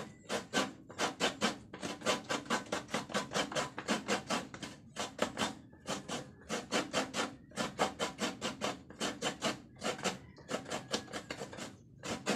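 Fresh coconut meat being grated by hand: quick, regular rasping scrapes, about four strokes a second, stopping near the end.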